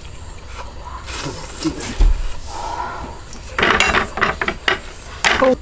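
Metal tongs scraping and clattering against a frying pan and plate, in a few short sharp strokes, mostly in the second half.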